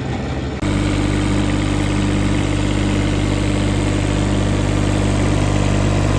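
Kubota three-cylinder diesel of a Bobcat 323J mini excavator running steadily. About half a second in the sound steps up suddenly to a louder, higher-pitched steady run.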